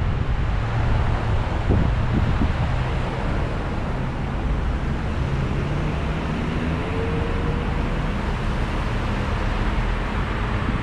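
Steady outdoor rumble of road traffic mixed with wind buffeting the microphone; a faint engine tone rises slowly in the second half.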